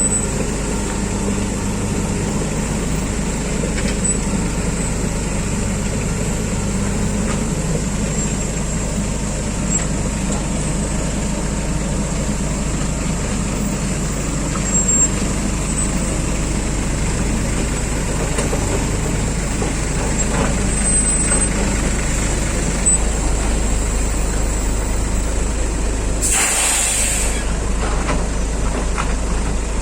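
Heavy diesel engines of a dump truck and an excavator running steadily, with a short burst of air hissing from a truck's air brakes near the end.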